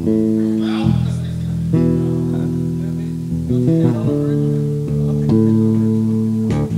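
Live band playing a slow soul-ballad intro on guitars and bass guitar: held chords that change every second or so, with no singing yet.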